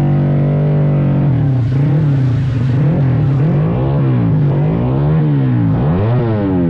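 A drag-racing motorcycle engine held at a steady note, then revved up and down over and over from about a second in, its pitch rising and falling in quick blips.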